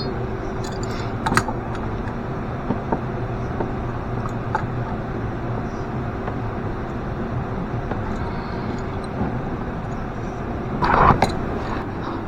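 Steady mechanical hum, with a few light clicks and a short burst of handling noise about eleven seconds in.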